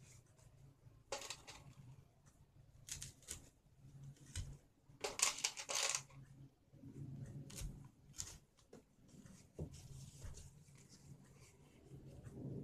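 Fresh banana leaves rustling and crinkling as they are handled and wrapped around the sides of a banana-leaf krathong, in several short bursts, the loudest about five seconds in. A low steady hum runs underneath.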